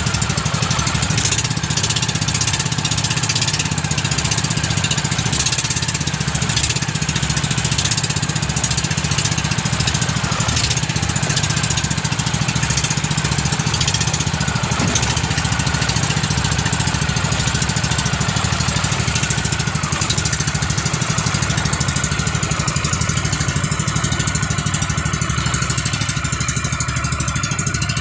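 Inboard engine of a 22-foot bangka outrigger fishing boat running steadily under way, with water splashing against the hull and wind through choppy waves.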